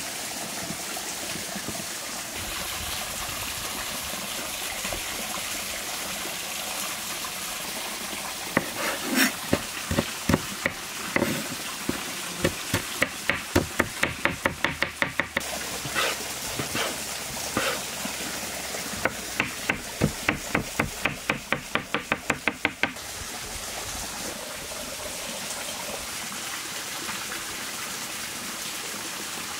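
A chef's knife chopping grilled green peppers on a wooden cutting board, in quick runs of sharp chops, about four or five a second, through the middle stretch. A stream rushes steadily underneath.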